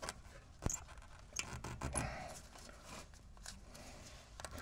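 A plastic zip tie being pulled tight around a removed brake caliper to hang it up: light clicks, one sharper about a second in, and short scraping handling sounds.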